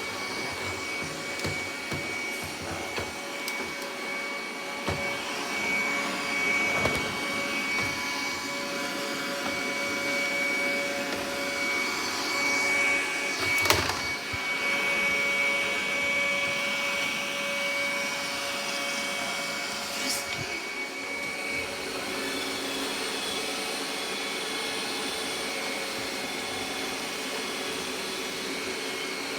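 Robot vacuum cleaner running with a steady motor whine and brush hum. A sharp knock comes about 14 seconds in and a smaller one about 20 seconds in.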